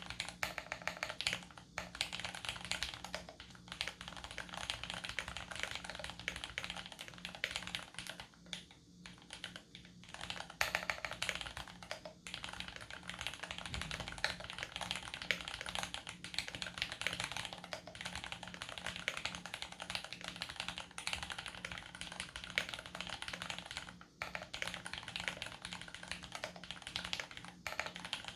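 Continuous typing on an Archon DX2 mechanical keyboard with lubed Cherry MX Vintage Brown tactile switches in an aluminium plate and GMK Honeywell keycaps, the key strokes coming in a dense stream with a short pause about nine seconds in.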